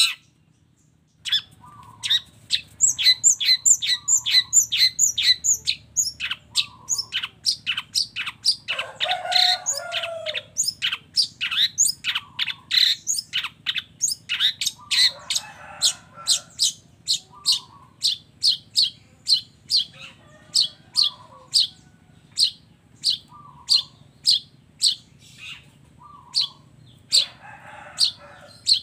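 Long-tailed shrike (cendet) singing in a fast, continuous run of sharp, high repeated notes, about two to three a second, with harsher chattering phrases mixed in: the mimicry-filled 'gacor' song used as masteran for cage birds.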